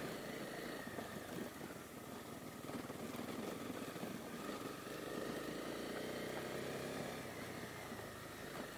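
Honda CB250R's single-cylinder engine running steadily as the motorcycle rolls along a gravel track, heard from a helmet-mounted camera; it gets a little louder for a few seconds past the middle, then eases off.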